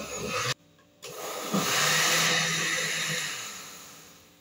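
Countertop blender running, liquefying pineapple, cucumber, lime juice, sugar and water. It cuts off about half a second in, starts again a moment later, then fades away toward the end.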